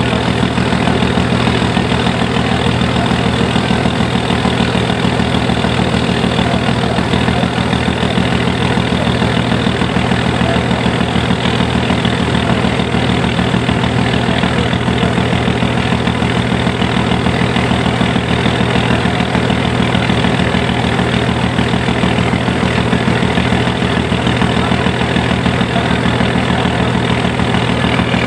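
A boat's engine running steadily, with water churning and rushing along the hull.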